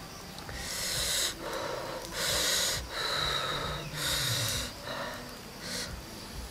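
A man hissing in and out sharply through his mouth and teeth, about six quick breaths in a row, from the burn of chili sauce eaten with raw red onion.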